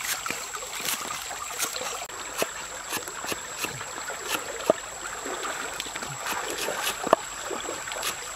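Cleaver chopping green onions on a chopping board: steady sharp knocks, about two to three a second, a few noticeably louder. Under them is the continuous rush of a flowing stream.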